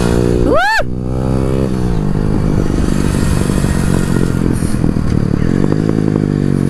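Modified Honda motorcycle with an aftermarket exhaust: the engine rises and falls in speed, then the exhaust pops and crackles as the throttle eases off. A short rising-and-falling whoop cuts in about half a second in.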